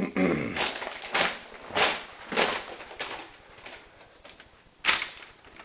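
Footsteps at a walking pace, sharp steps about every half second, with fainter ones after and a single louder step near the end.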